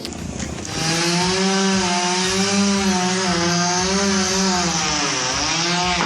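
Chainsaw running at high revs while cutting, starting about a second in, its pitch sagging briefly near the end as the cut loads it.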